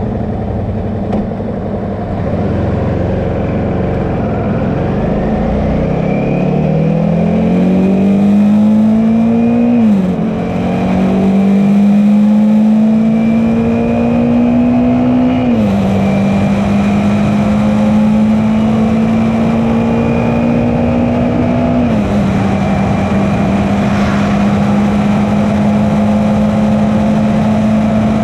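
Suzuki V-Strom 650's V-twin engine pulling away and accelerating, its pitch climbing through the gears with upshifts about ten and fifteen seconds in. A smaller shift comes at about twenty-two seconds, after which it runs steadily at cruising speed.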